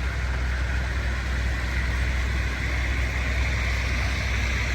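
Steady low rumble of car engines idling in bumper-to-bumper traffic that is barely crawling.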